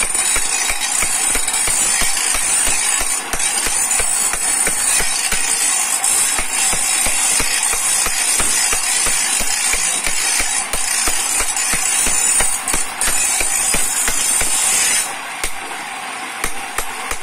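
A hammer striking a small steel chisel against a stone grinding slab in rapid, steady taps, pecking a rough texture into its face. There is a short let-up near the end.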